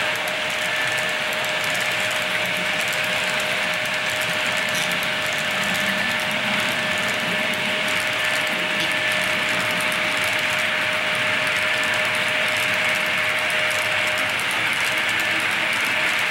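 HO-scale model freight cars rolling along the track: a steady mechanical rattle of small wheels on rail, with a thin steady tone under it that drops out near the end.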